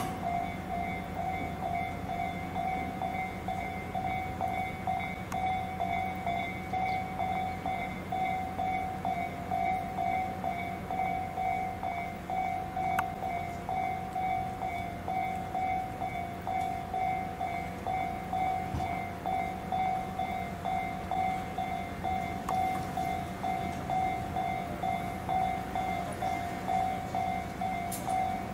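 Japanese level-crossing warning alarm ringing, a rapid, evenly repeated electronic ding, with a low steady rumble beneath.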